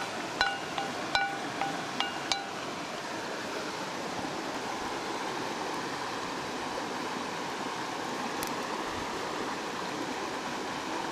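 A metal utensil clinks several times against ringing metal cookware in the first two seconds or so, then a steady rushing background noise continues.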